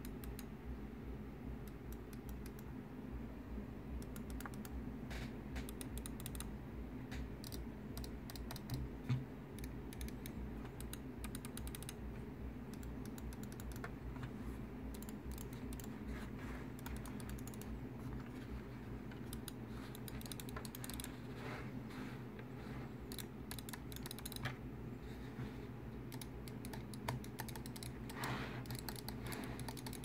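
Logitech gaming mouse buttons clicking over and over in quick runs of sharp clicks, with one louder knock about nine seconds in.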